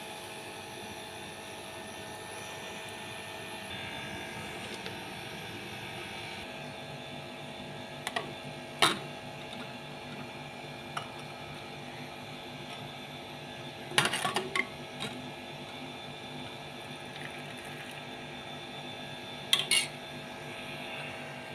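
Steady kitchen hum while a pot of kahwa boils on a stove turned down to low, with a few short knocks and clatters spread through it.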